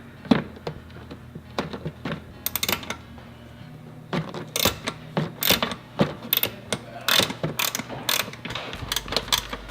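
Socket ratchet clicking as it backs out a 14 mm bolt on the pitch stop mount: sparse clicks at first, then quicker, louder runs of clicks in the second half.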